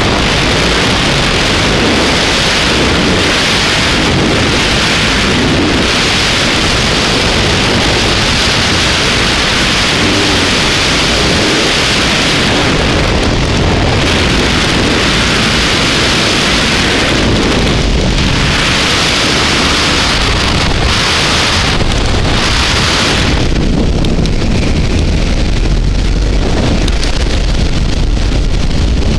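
Heavy freefall wind buffeting a helmet camera's microphone during a skydive: a loud, steady rush and rumble. The hiss eases from about three quarters of the way in, while the low rumble carries on.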